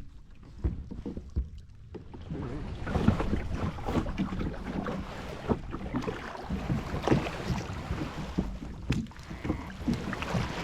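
Kayak on choppy water: water splashing and slapping against the hull with irregular small knocks, and wind rushing on the microphone, growing louder about two seconds in.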